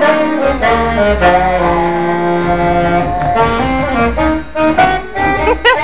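Saxophone honking a bluesy jazz instrumental over an accompaniment with a low bass line.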